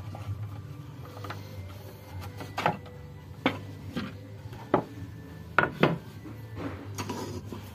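Bamboo plates and cups being handled and set down: about half a dozen sharp wooden knocks and clacks at irregular intervals, over a faint steady hum.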